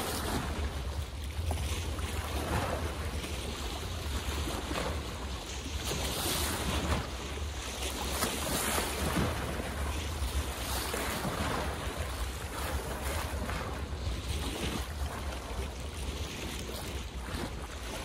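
Water waves splashing: a steady wash with irregular louder splashes every second or two, over a low rumble of wind on the microphone.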